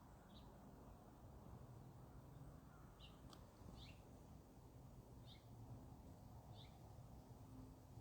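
Faint outdoor ambience: a low steady hum, with a small bird giving short, high, down-slurred chirps every second or two.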